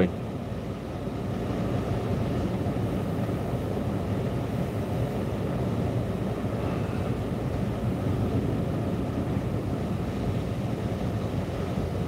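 Steady low rumble of wind and waves breaking on the shore, heard from inside a parked car.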